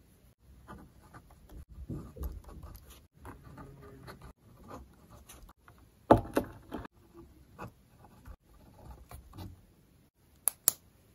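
Quiet desk sounds: a pen scratching on notebook paper and small handling rustles, with a louder knock and clatter about six seconds in and a couple of sharp clicks near the end.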